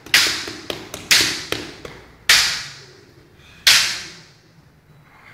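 Bamboo shinai strikes in kendo sparring: four loud, sharp cracks about a second apart, with a few smaller clacks between, each ringing out briefly in the hall.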